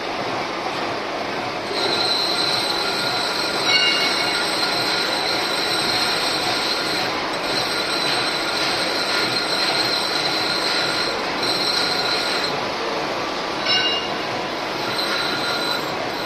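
Lathe cutting, with a steady high-pitched squeal from the cut that sets in about two seconds in and drops out briefly a few times, and two short screeches along the way.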